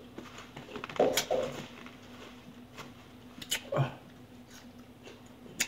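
Eating sounds at a table: mouth noises while chewing, a short falling hum past halfway, and a few sharp clicks.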